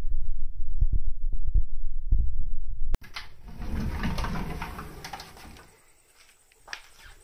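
A cat eating dry kibble: a few low thumps and short crunches close to the microphone. A cut about three seconds in brings a burst of rustling and shuffling that fades away.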